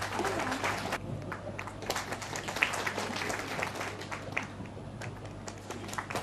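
Applause from a room of people: a steady patter of scattered hand claps.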